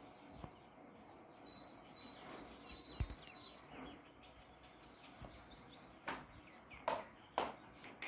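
Bird chirping, rapid high-pitched chirps for a couple of seconds, then three short sharp sounds near the end.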